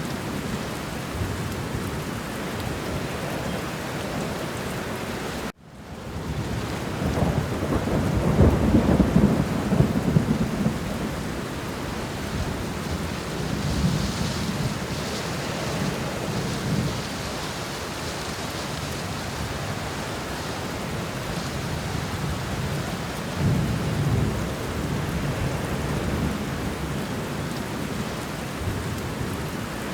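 Steady rain in a thunderstorm, with a long low rumble of thunder about seven to ten seconds in and softer rumbles later. About five and a half seconds in, the sound cuts out abruptly and fades back in.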